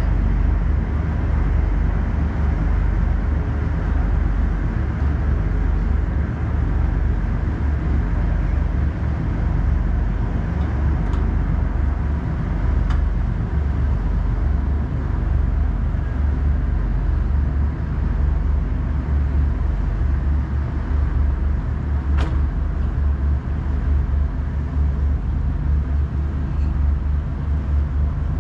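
Deep, steady drone of ship diesel engines as a bunker tanker moves off under power, with a few faint ticks.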